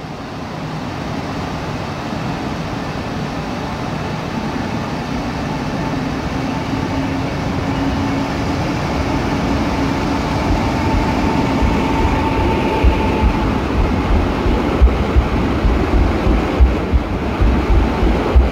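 Pesa Elf II electric multiple unit running along the platform toward and past the listener, growing steadily louder as it nears. Rhythmic heavy thumps of its wheels over rail joints come in the last few seconds as it passes close.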